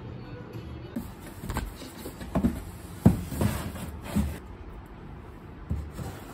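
Hollow knocks and thumps of a cardboard box being shifted into place on a window ledge, the loudest about three seconds in, then a lighter knock near the end as a potted plant in a ceramic pot is set down on the box.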